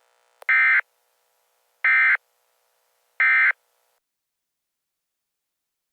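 Emergency Alert System end-of-message (EOM) data bursts: three short, buzzy electronic bursts about 1.4 s apart, marking the end of the broadcast alert.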